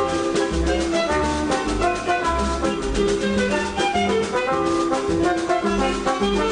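Lively dance music from a theatre orchestra, with a steady bouncing bass beat under a busy melody.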